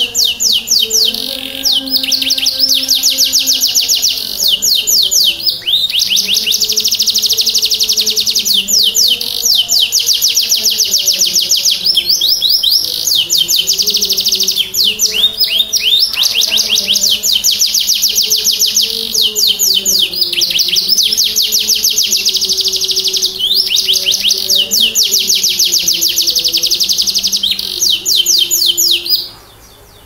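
Domestic canary singing a long, continuous song of fast trills and rolls, moving from one rapidly repeated phrase straight into the next, and breaking off suddenly near the end.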